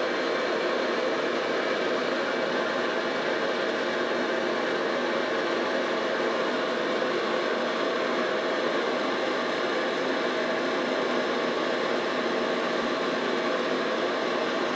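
Small metalworking machine tool running steadily: an even, unbroken machine noise with a faint high whine.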